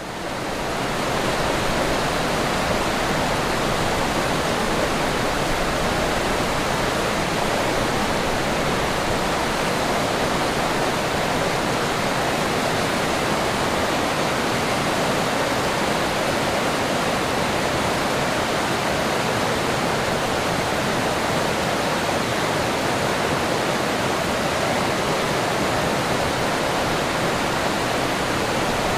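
River water rushing over rocks, a steady full rush that fades in over the first second or so and then holds even.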